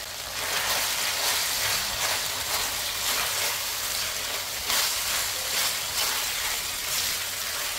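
Ground pork with diced carrots and peas frying in a wide stainless steel pan, a steady sizzle that swells and fades irregularly as a spatula stirs and scrapes it around the pan.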